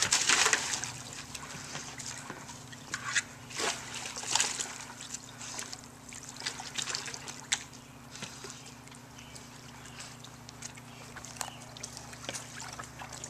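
A dog clambering into a plastic stock-tank pool with a splash in the first second, then wading about, the water sloshing with a few more splashes a few seconds in before settling to gentle lapping.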